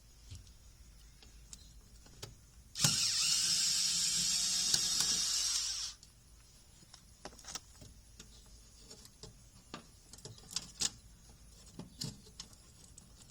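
Power drill running steadily for about three seconds, then stopping suddenly, during work fitting new contactors in an air conditioning unit. Small clicks and taps of handling parts and tools are heard around it.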